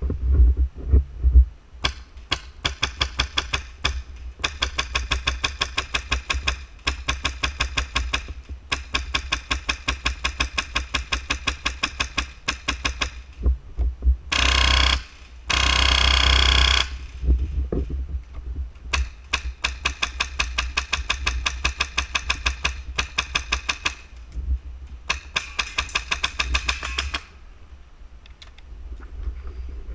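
Magpul Masada airsoft electric rifle firing long full-auto bursts, a rapid, even run of sharp shots with short pauses between bursts. In the middle, two bursts come so fast that they blur into a continuous buzz. A few heavy thumps come at the start.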